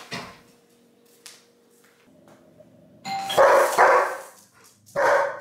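A doorbell chimes, then a German Shepherd barks at it three times, loud, from about three seconds in: the dog's alert reaction to the doorbell.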